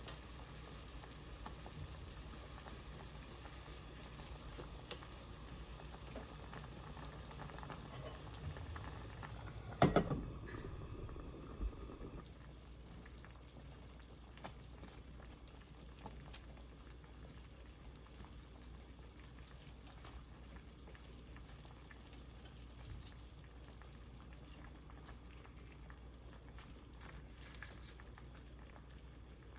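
Food cooking on the stove, a steady bubbling and sizzling in a pot or pan. About ten seconds in, a utensil or lid clatters loudly against it, with a smaller knock a moment later.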